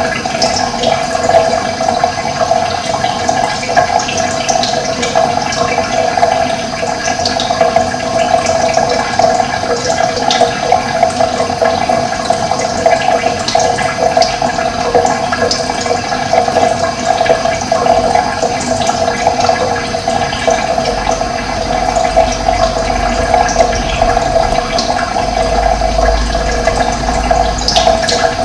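Running water rushing steadily, with occasional short, faint bird chirps above it.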